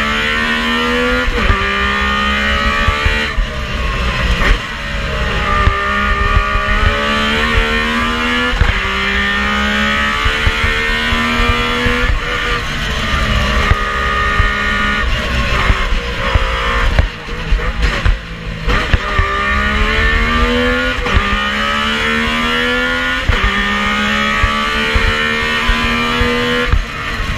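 Metro 6R4 rally car's 3.0-litre V6, heard from inside the cockpit, revving hard and changing up through the gears again and again, each gear a rising pitch cut short by the shift. About two-thirds of the way through the revs drop away briefly as the throttle is lifted, then it pulls hard again.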